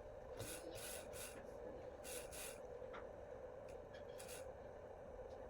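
Several short, hissy scraping strokes over a steady low hum.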